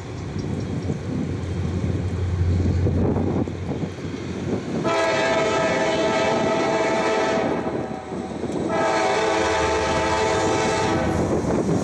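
Approaching CSX freight train's diesel locomotives rumbling. The lead locomotive's air horn then sounds two long blasts, the first about five seconds in and the second about nine seconds in.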